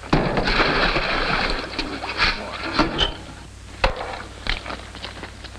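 Water poured from buckets into a farm water tank, splashing for about a second and a half, followed by scattered knocks and clanks.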